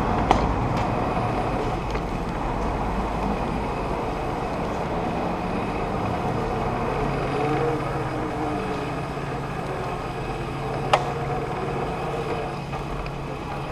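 Brammo Empulse R electric motorcycle rolling at walking pace, a steady low rumble with a faint high whine, and two sharp clicks, one just after the start and one near the end.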